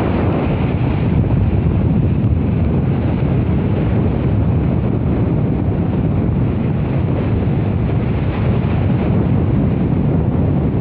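Steady wind buffeting the microphone, a constant low rumble with a wash of water noise.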